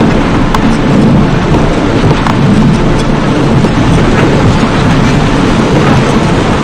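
A steady, loud low rumbling noise with a few faint clicks scattered through it: a thunder-like sound-effect texture in an experimental electronic composition.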